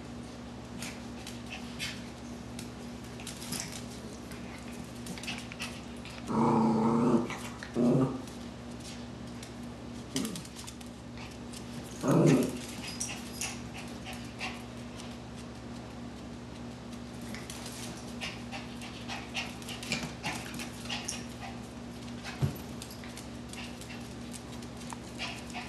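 Two small terriers playing, with loud pitched play vocalisations: one outburst of about a second around six seconds in, a shorter one around eight seconds, and another around twelve seconds. Scattered light clicks run between them.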